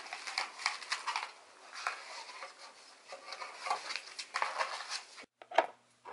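Hands handling packaging in a sample box: irregular rustling with small clicks and taps. The sound cuts out briefly near the end, and a single sharp click follows over a faint electrical hum.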